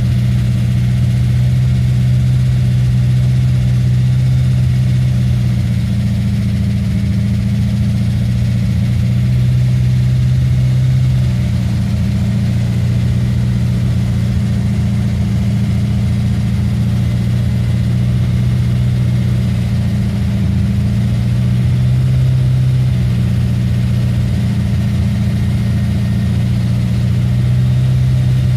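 GM LS7 7.0-litre pushrod V8 with a Livernois Stage 2C camshaft, idling steadily. It is presented as showing lifter noise.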